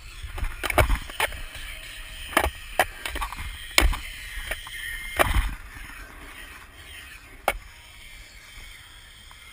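Skateboard on concrete: wheels rolling with a low rumble, broken by a series of sharp knocks as the deck and wheels hit the ground during freestyle tricks. The loudest knock comes about four seconds in, and a last one comes near the end.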